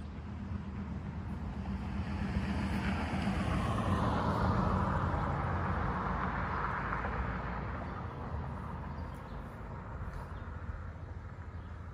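A vehicle passing by: road noise swells over a couple of seconds, peaks midway with a falling hiss, and fades away, over a steady low rumble.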